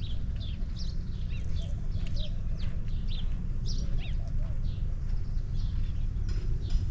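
Small birds chirping: many short, quick downward chirps, several a second, over a steady low rumble.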